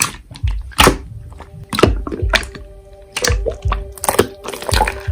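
Slime being pressed and poked by hand, making an irregular run of sharp clicks and pops with soft thuds, about two or three a second.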